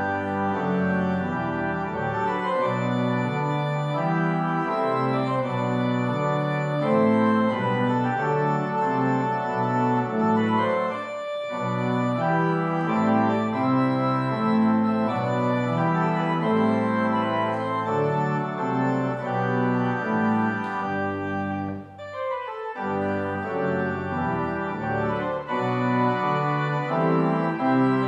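Church organ playing slow, sustained chords, with a brief pause between phrases about three-quarters of the way through.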